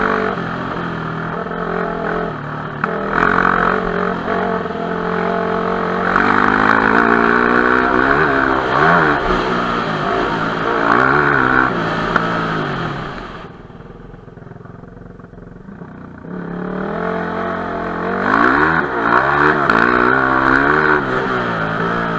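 Enduro dirt bike engine revving, its pitch rising and falling with the throttle again and again. It drops back to a much quieter, low run for about three seconds in the middle, then revs up again.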